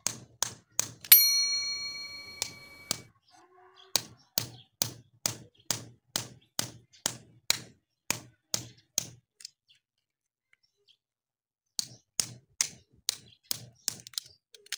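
Evenly spaced sharp clicks, about two to three a second, that pause twice. About a second in, a bright electronic notification ding rings out and fades over about two seconds, from a subscribe-button animation.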